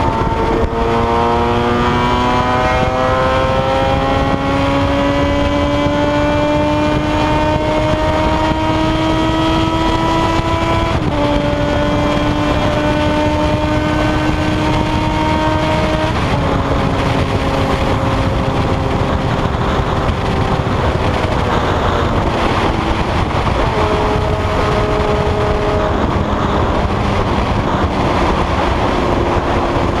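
Motorcycle engine running hard at highway speed, its pitch climbing slowly for about ten seconds, then dropping in steps a few times, under heavy wind roar on the microphone.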